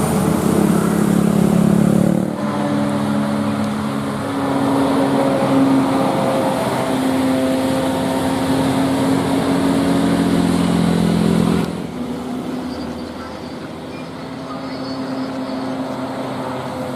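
Bus engines and road noise with a steady low drone. The sound changes abruptly twice, about two seconds in and again past the middle.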